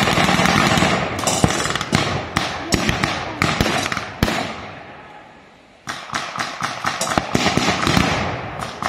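Blank gunfire from reenactors' rifles and automatic weapons: many sharp cracks, irregular and sometimes in quick runs, falling off about four and a half seconds in and starting again after a pause of over a second.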